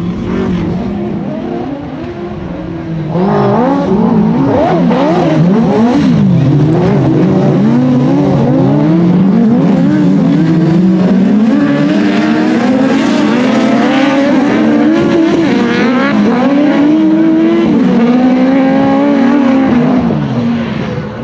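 Several autocross buggies racing on dirt, their engines revving up and down through the gears over one another. The sound gets louder about three seconds in as the pack comes closer.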